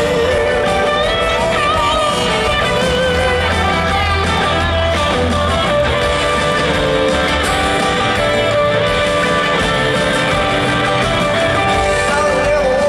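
Live country band playing, with guitar prominent over the band, heard from the audience in a large arena.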